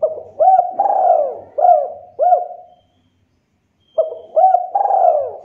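Spotted dove cooing: two phrases of several rolling, arched coos, the first ending near three seconds in and the second starting about a second later.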